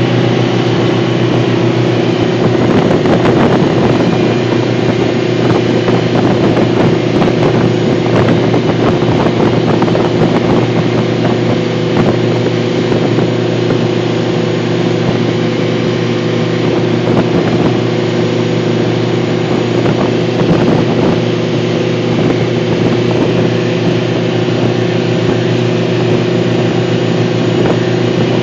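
Alusafe 580 rescue boat under way at a steady engine speed, its engine note holding constant. Wind buffets the microphone, and the hull knocks and splashes through the chop, mostly in the first half.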